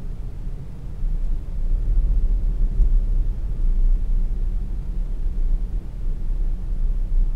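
Low, steady rumble of a car driving along city streets, growing louder about a second in.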